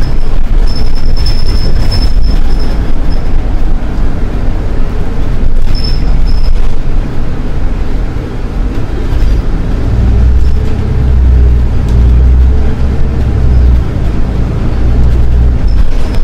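Running noise of a Solaris Urbino 12 IV city bus under way: a steady deep engine and road rumble that grows heavier about ten seconds in. A thin high squeal comes and goes near the start and again about six seconds in.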